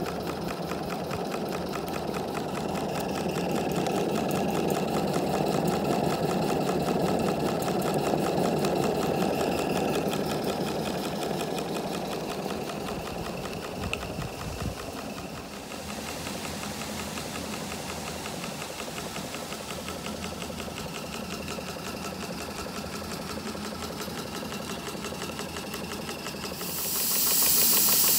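Maxitrak 1-inch-scale live-steam Burrell traction engine running on the spot, its cylinder exhausting in a fast, even rhythm. Near the end a loud steam hiss starts and drowns the beat.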